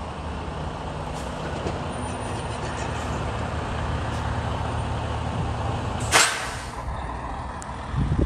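Diesel engine of a Freightliner Cascadia semi tractor, running bobtail, rumbling steadily as it rolls slowly by. About six seconds in comes one sharp burst of air hiss that tails off quickly, typical of the truck's air brakes. A couple of low knocks follow near the end.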